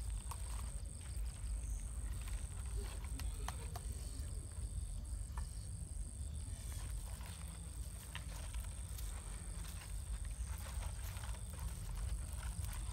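Small wood campfire crackling with scattered sharp pops, over a steady high insect trill and a low rumble.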